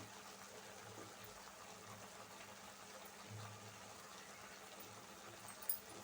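Faint sizzling and bubbling of chicken cooking in a pan with onion, tomato and ginger-garlic paste, with a short clink near the end.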